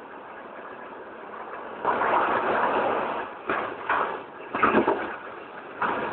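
Passenger train running, heard from inside the carriage: a steady rushing rumble that swells in loud surges several times and falls back between them.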